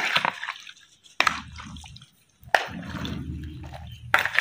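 Raw chicken being mixed by hand into a yogurt-and-spice marinade in a bowl: wet squelching and squishing, with four sharp clicks about a second apart.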